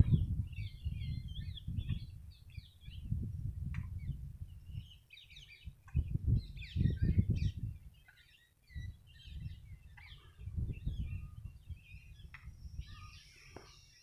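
Small birds chirping and calling again and again, over low gusts of wind noise on the microphone that swell and fade several times.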